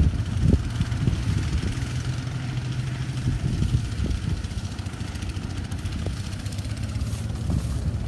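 Engine of a rice threshing machine running steadily, heard as an even low hum.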